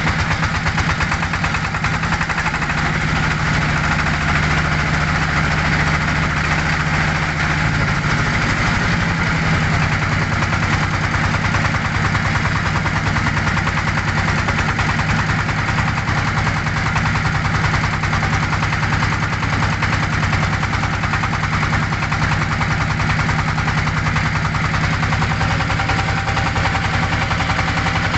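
Wooden river motorboat's engine running steadily under way, its note shifting a little about eight seconds in.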